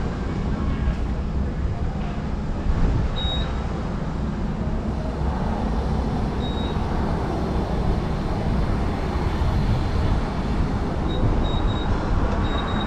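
Steady outdoor rumble of traffic and wind. Short high-pitched beeps sound about three seconds in, again midway, and several times near the end.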